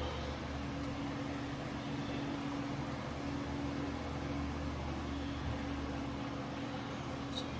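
Steady low hum with a faint hiss: household room tone from a running machine, with one small click near the end.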